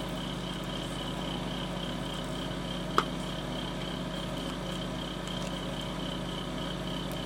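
Steady electrical or mechanical background hum, unchanging throughout, with a single sharp click about three seconds in.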